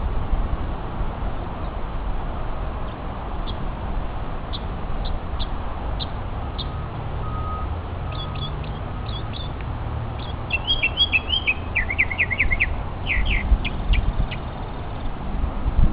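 Mockingbird singing: scattered short high chips at first, then a quick run of varied phrases with rapidly repeated notes in the last third, over a steady low rumble.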